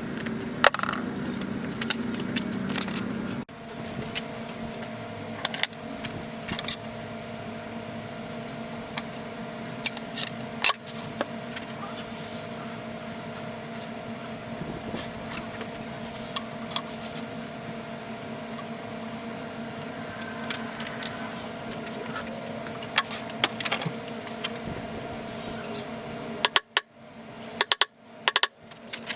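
Workshop handling sounds: a small power tool runs for about the first three seconds and stops. Scattered clicks and knocks of tools and parts being handled follow over a steady hum, with a few louder knocks near the end.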